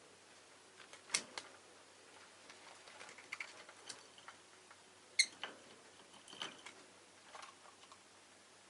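Pet rosy-faced lovebirds making scattered sharp clicks and a few short chirps, the loudest about five seconds in.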